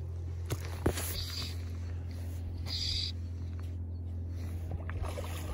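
Steady low wind rumble on the microphone, with two sharp knocks about half a second and a second in and a couple of brief hissing rustles.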